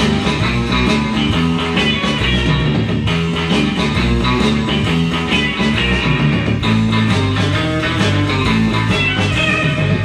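Rock and roll record playing, led by guitar over bass and a steady drum beat.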